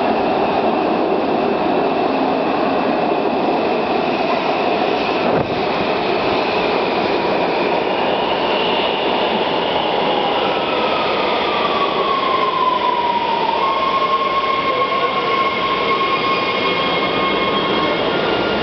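Washington Metro subway train arriving at an underground platform: a steady rumble of wheels and running gear, with a whine that falls in pitch about halfway through as the train slows, then holds as one steady tone while it comes to a stop.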